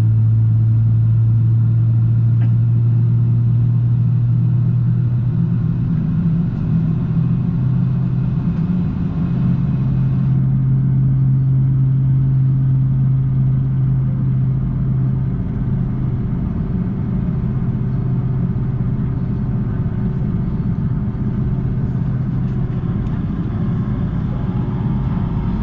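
Boeing 757-200 passenger cabin noise: the jet engines running with a steady low hum and rumble, the hum shifting slightly in pitch a couple of times, as the airliner moves on the ground before takeoff.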